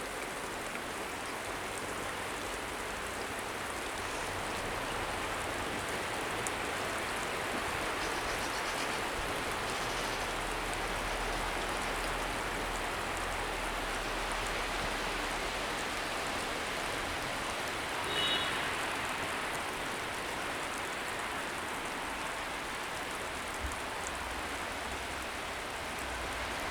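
Steady even hiss of sleet, wet snow mixed with rain, falling. One short high chirp about eighteen seconds in.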